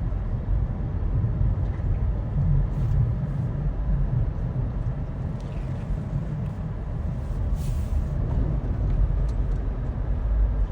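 Steady low rumble of a motor vehicle's engine and tyres on a snowy road, with a few faint brief hisses higher up.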